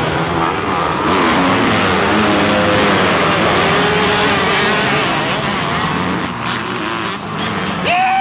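A pack of motocross bikes racing through the first turns, many engines revving over one another at full throttle. Near the end a single bike passes close, its engine note loud and steady before it drops away.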